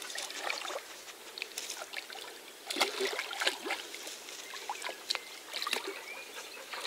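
Light splashing and lapping of water, broken by scattered small clicks and knocks at irregular intervals.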